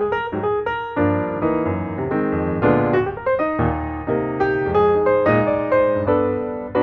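Instrumental piano music: single notes and chords struck one after another, each ringing and fading.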